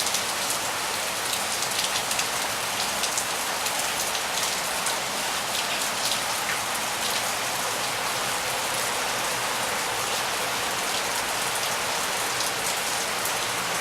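Steady rain falling and pattering on hard surfaces, an even hiss full of small drop ticks.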